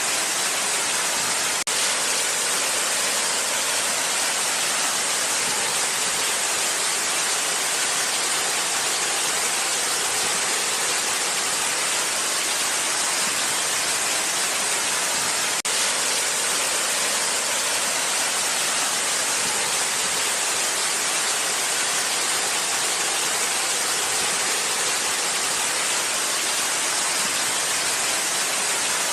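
Waterfall rushing in a steady, even roar of falling water, with two momentary dropouts, about two seconds in and about halfway through.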